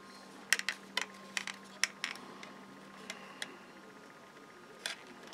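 Irregular light clicks and taps of hard plastic, about ten, most of them in the first two seconds and one more near the end. They come from handling a plastic 1/72 SR-71 model-kit fuselage part clamped with a wooden clothespin, over a faint steady hum.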